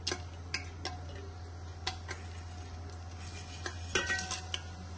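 Whole spices dropped into hot mustard oil in an aluminium pressure cooker: scattered light clicks and taps as dried chillies go in, then a quick cluster of clinks with a short metallic ring as cumin seeds are tipped from a steel plate against the cooker, with a faint sizzle as they hit the oil.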